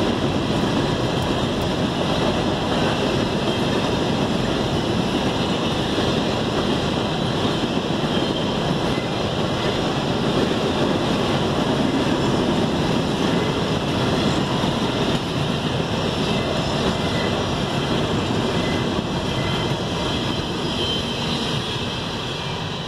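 Freight train of hopper cars rolling past, a steady noise of steel wheels on the rails, fading over the last few seconds as the end of the train moves away.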